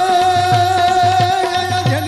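Gujarati folk devotional music: one long held melody note over a steady drum rhythm.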